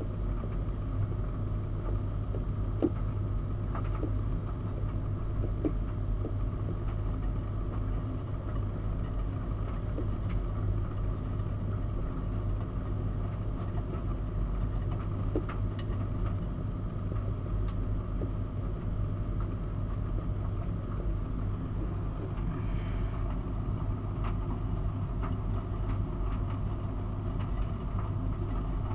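Miele W 5873 WPS front-loading washing machine in its wash phase, the drum turning a wet load of dark laundry. A steady low hum runs throughout, with a few light clicks in the first half.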